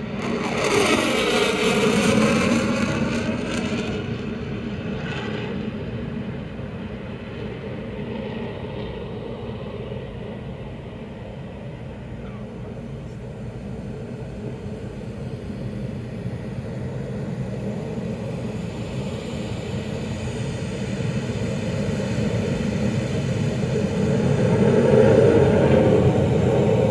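Military jet aircraft flying past: loud at the start with a sweeping sound as it passes, fading to a low distant rumble, then building again and loud near the end as another pass comes in.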